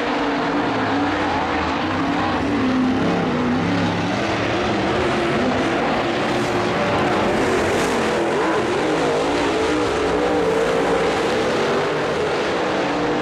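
Several dirt late model race cars' V8 engines running hard at once, their pitch wavering up and down as they accelerate and lift through the turns.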